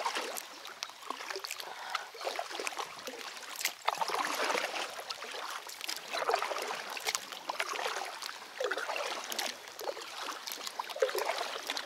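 Paddles of an inflatable PVC kayak dipping into river water in slow, even strokes, with water splashing and trickling off the blades; the splashes swell about every two and a half seconds.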